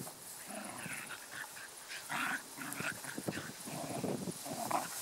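Two dogs, one a schnauzer, play-fighting in long grass: short whining and growling calls over and over, with scuffling and rustling of the grass as they wrestle.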